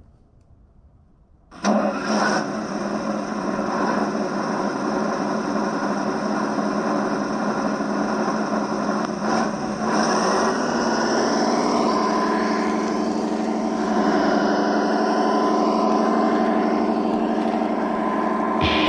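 The Das Mikro TBS Mini sound module on an RC scale Ural 4320 truck, playing a simulated diesel truck engine through its small speakers: the engine starts suddenly about one and a half seconds in and then runs steadily, a little louder from about ten seconds in.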